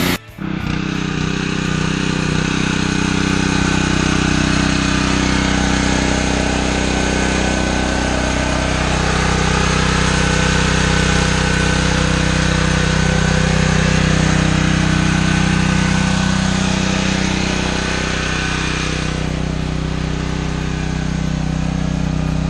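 Small Honda single-cylinder gas engine of a Simpson 3200 PSI pressure washer running steadily while the washer sprays, with a high hiss over the engine note that eases near the end.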